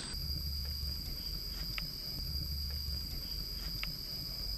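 Night insects trilling in a steady high-pitched drone, over a faint low hum, with two faint ticks.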